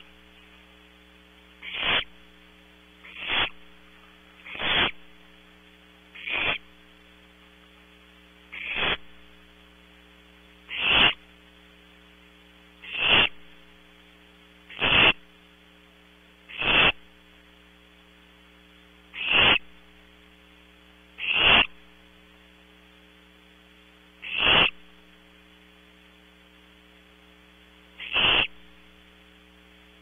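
Barn owl owlets giving short rasping hiss calls, the nestlings' begging 'snore', repeating roughly every two seconds. A steady electrical mains hum runs underneath.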